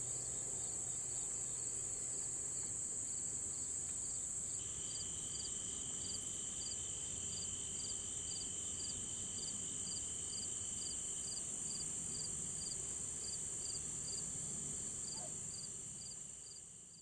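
Evening insect chorus: a steady high-pitched drone with a cricket chirping regularly a couple of times a second. A second steady insect trill joins about four and a half seconds in, and the whole chorus fades out near the end.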